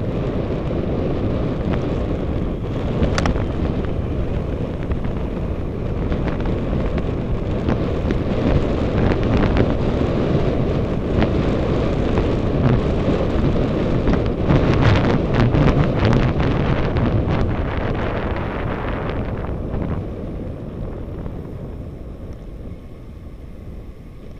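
Wind buffeting the microphone of a camera riding on a road bike at speed, with road rumble and scattered rattling clicks from bumps in the pavement. The noise falls off over the last few seconds.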